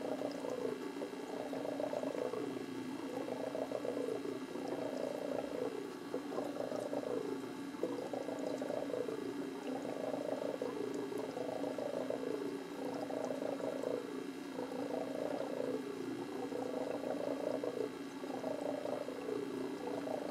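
Aquarium equipment running: a steady hum with a rhythmic pulsing swell about every two seconds.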